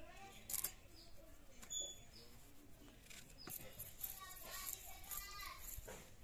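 Faint scraping, clicking and rasping of food being cut by hand against an upright curved bonti blade: a snakehead fish, then fresh flat bean pods. A few short high bird chirps come and go behind it.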